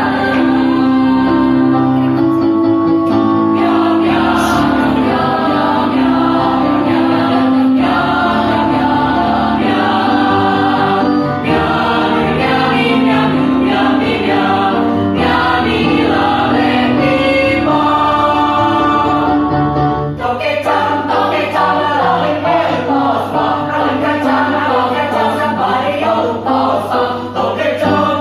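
Mixed choir singing a cappella in several parts: sustained chords at first, then about two-thirds of the way through the low held note drops away and the voices move into a quicker, busier passage.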